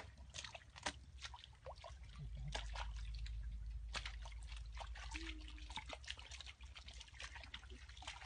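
Hands and bare feet squelching and splashing in shallow muddy water: a run of irregular small splashes, drips and trickles. A low rumble comes in about two seconds in.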